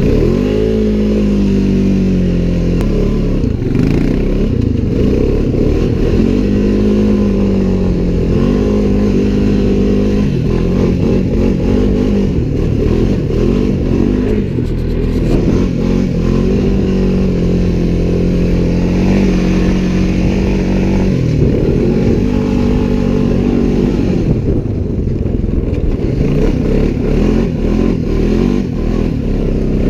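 Off-road vehicle engine under way, its pitch rising and falling over and over as the throttle is opened and eased off.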